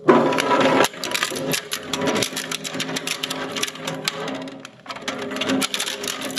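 Filamaker twin-shaft plastic shredder's hooked steel cutters biting into a plastic hubcap: a loud clatter as the hubcap is caught at the start, then a dense run of cracks and snaps over the machine's steady hum, easing briefly just before five seconds in.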